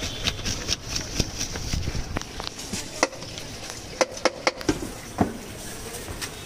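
A spoon clattering quickly inside a mug as jhal muri (puffed rice with spices) is stirred, then about six sharp, separate knocks from about three seconds in.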